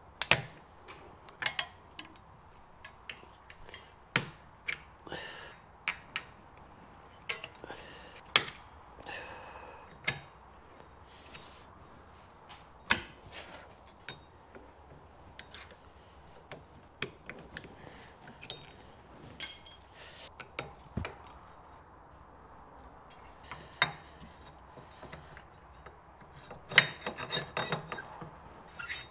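Hand tools clicking and scraping against handbrake shoe springs and clips on a rear brake backing plate as they are fitted: irregular sharp metallic clicks and taps, some ringing briefly, with a quick run of clatter near the end.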